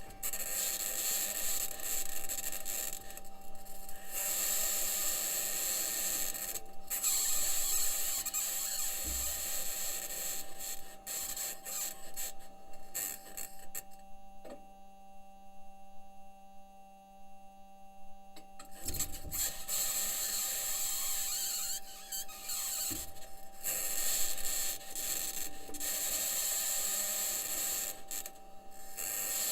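Perseverance Mars rover driving, as heard through its onboard microphone: a scraping, rasping rattle of the aluminium wheels over rock, over a steady hum, with a couple of low thuds. The scraping drops away for several seconds midway, then resumes.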